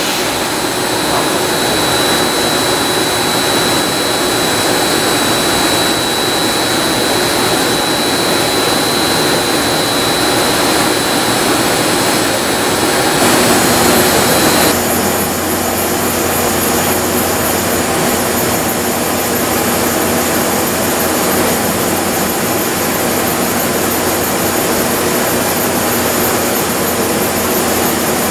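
Milltronics VMD-30 CNC vertical machining center running under power: a steady mechanical drone with a high whine that stops about fourteen seconds in, leaving a lower steady hum.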